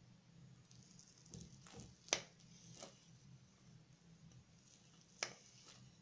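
A metal fork cutting through a slice of layered crepe cake and knocking on the plate: two sharp clinks, about two seconds in and again about five seconds in, with fainter taps and scrapes between.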